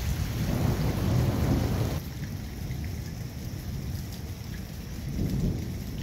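Steady rain falling with thunder rumbling, loudest in the first two seconds, then cutting off suddenly; a weaker rumble swells near the end.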